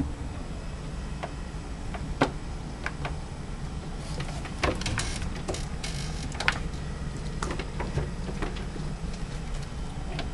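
Pet minks scrambling about inside a wooden cupboard: scattered clicks, knocks and scratchy scrabbling, over a steady low rumble.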